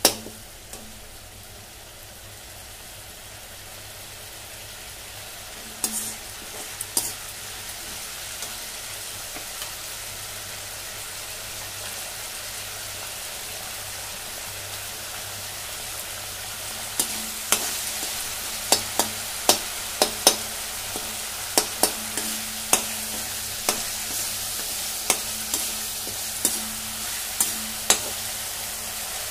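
Onion-tomato masala sizzling in a kadai, the hiss growing slowly louder. A perforated metal spatula scrapes and knocks against the pan a few times early on, then about once a second through the second half.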